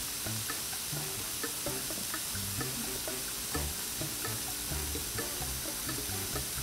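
Diced ribeye frying on a Blackstone 22-inch griddle's hot flat-top at medium-high heat: a steady sizzle with small scattered crackles and pops.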